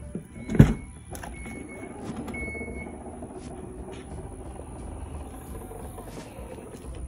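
Power liftgate of a 2017 Dodge Durango R/T opening: the latch releases with a sharp clunk about half a second in, then the gate's motor runs steadily for several seconds as it rises, with two short high beeps near the start of the motion.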